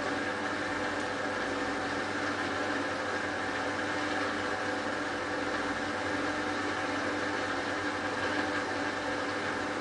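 Hotpoint Ultima WT960 washing machine spinning at a steady speed: a constant motor and drum hum with a few held tones over a whooshing haze.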